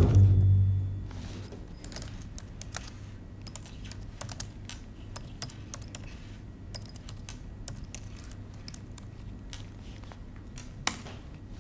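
Typing on a laptop keyboard: irregular key clicks in quick runs, with one sharper click near the end.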